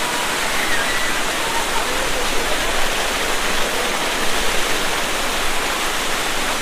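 Small waterfall pouring over rock and splashing close by, a steady rush of water with a few louder splashes in the middle as a person ducks under the falling stream.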